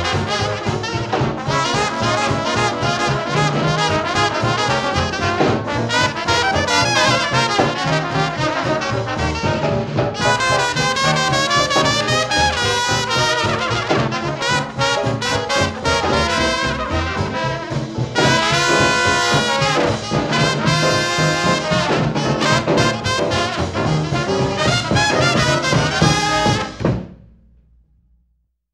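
Brass-led jazz band music with trumpets and trombones, fading out to silence near the end.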